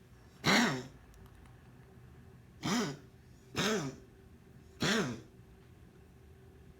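A cat coughing: four short coughs, each with a brief rising-and-falling pitched rasp. The first comes about half a second in, and three more follow about a second apart later on.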